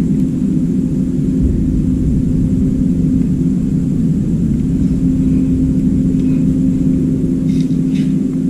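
A steady low mechanical hum with one held tone.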